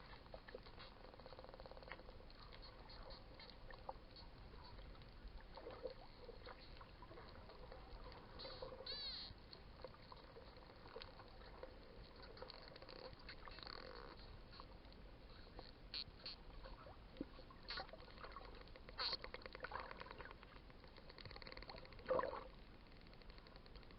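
Wild dolphins heard underwater: scattered clicks and short squeaky chirps over a faint hiss of water, with a quick run of rising squeaks about nine seconds in and a louder squeal near the end.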